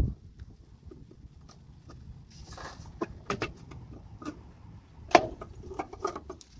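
Scattered plastic clicks and knocks from a 2015 Honda Pilot tail light housing being rocked by hand to free it from its retaining clips, with the sharpest knock about five seconds in.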